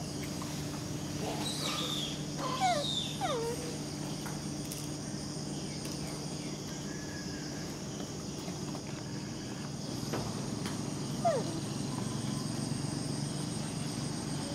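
Steady drone of insects over a low steady hum, with a few short, high squeaks that slide downward in pitch about two to three seconds in and once more near eleven seconds.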